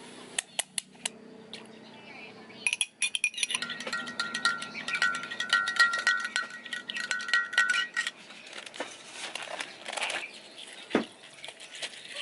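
A long metal spoon stirring coffee and milk in a glass measuring jug, clinking rapidly against the glass with a ringing chime for about five seconds. A few sharp taps come before it, and a single soft knock near the end.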